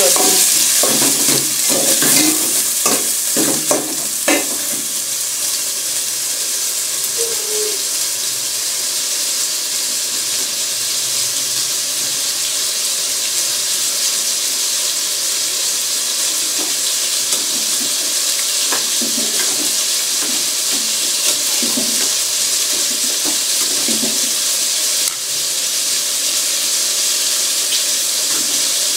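Diced tomatoes and onion frying in oil in an aluminium pot, a steady sizzle, with a metal spoon scraping and knocking against a pot in quick strokes for the first few seconds and a few light knocks later on.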